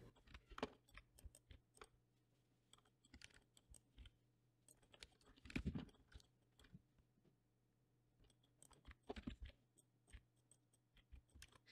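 Near silence with faint scattered clicks of a computer keyboard and mouse, with two slightly louder clusters of key presses about five and a half and nine seconds in.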